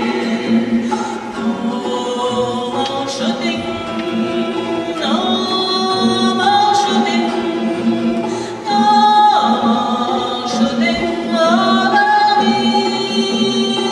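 Gospel choir singing a cappella, with a woman's lead voice on a microphone sliding between long held notes above the choir's harmonies.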